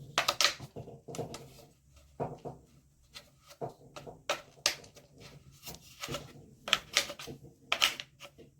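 Irregular sharp clicks and rustles of objects being handled, a few a second, over a faint low hum.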